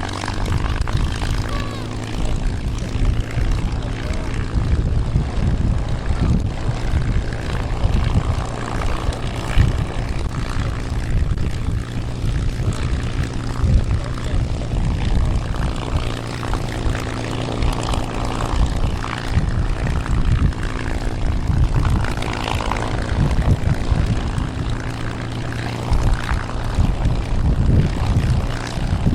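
Piston-engined propeller aircraft in flight, its engine giving a steady drone throughout, with gusts of wind buffeting the microphone.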